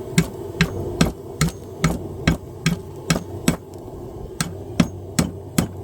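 Hand hammer striking hot steel tong blanks in a steady rhythm of about two and a half blows a second, with a brief pause a little before four seconds in.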